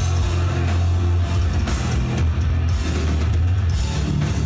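Live heavy metal band playing loud: distorted electric guitars and a drum kit over a heavy, steady bass, heard from within the crowd.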